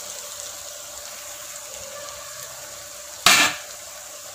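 Chopped onions frying in oil in a kadai, a steady sizzle as ground tomato puree is poured in. A short loud noise a little over three seconds in.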